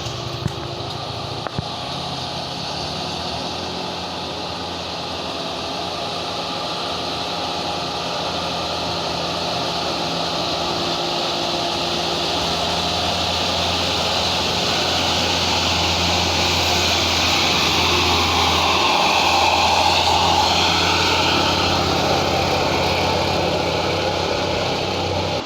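Diesel engine of a medium-size tour bus labouring up a steep climb. It grows steadily louder as it approaches and eases slightly near the end. Two short clicks sound in the first two seconds.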